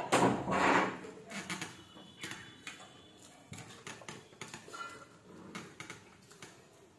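Eating by hand from steel plates: chewing, with fingers mixing rice and scattered small clicks and scrapes against the steel. A louder noisy burst comes in the first second.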